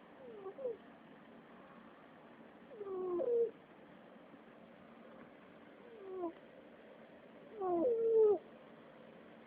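A cat making four short, moaning calls a couple of seconds apart, each one bending in pitch; the last is the longest and loudest. Its owner is unsure whether this is purring or snoring.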